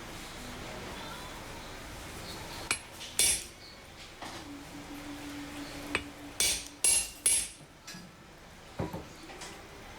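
A hammer striking steel irregularly in a smithing workshop: about seven sharp blows, two near the start and a cluster in the middle, each with a short bright metallic ring. A faint low steady hum runs under the middle blows.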